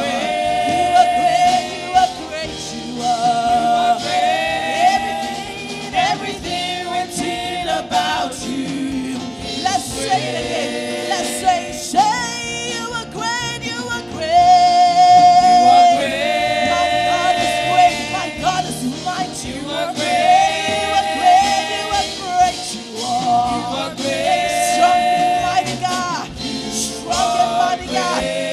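Live gospel worship song: lead and backing singers on microphones over a band with a drum kit and cymbals.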